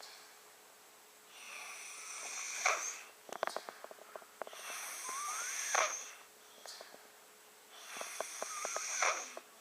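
A six-year-old boy snoring in his sleep with his mouth open: three snoring breaths about three seconds apart, each building and then cutting off sharply, with runs of small clicks between them. His parents take the laboured nose breathing for a sign of sleep apnea, with him not getting enough air.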